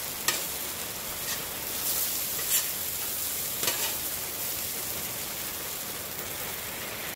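Shredded hash browns sizzling on the steel plate of a Blackstone Tailgater flat-top griddle, with a metal spatula scraping and turning them: a steady hiss broken by several sharp scrapes of the spatula on the steel.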